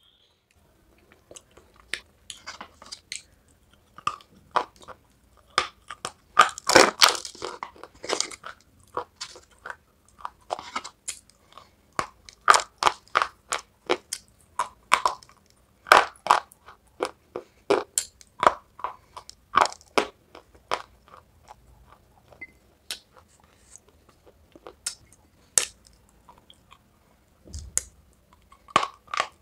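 Close-miked crunching and chewing of dry white chalky clay: many sharp, brittle crunches as pieces are bitten and ground between the teeth. They come thickest about a quarter of the way in and grow sparser later on.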